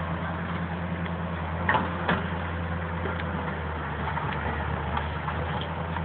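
Tracked excavator's diesel engine running steadily, a low hum, with two sharp knocks about two seconds in.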